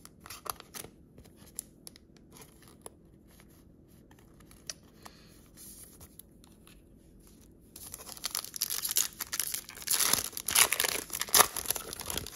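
Faint small clicks and rustles as a trading card is slid into a plastic sleeve. From about eight seconds in, a Donruss basketball foil card pack is torn open, with loud crinkling and tearing of the wrapper.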